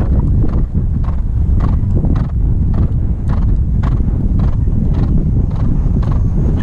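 Hoofbeats of a horse cantering over turf on a cross-country course, a steady rhythm of dull thuds about three a second, heard from the saddle over a constant low rumble of wind on the microphone.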